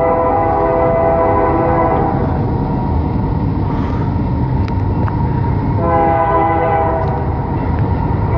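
Nathan K3L five-chime air horn on an approaching CP AC4400 locomotive blowing two long blasts for a grade crossing, the first ending about two seconds in and the next starting about six seconds in, over a steady low rumble.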